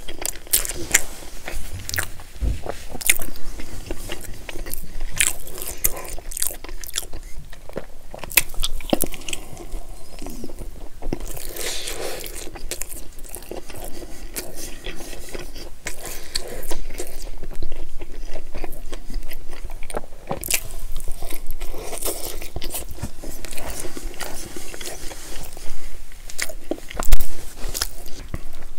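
Close-miked eating of a McDonald's breakfast sandwich: biting and chewing, with many short sharp clicks and crunches from the mouth and food throughout and one louder click near the end.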